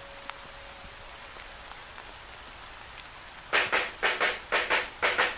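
Steady rain hiss, with the last held note of a song dying away at the start. About three and a half seconds in, an electric guitar comes in over the rain with choppy strummed chords, about three to four a second and much louder than the rain. It sounds thin and without bass, as if played through a small radio.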